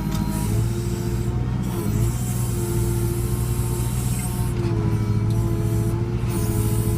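JCB 3CX backhoe loader's diesel engine running steadily under working load, with a higher tone that drops out and comes back several times.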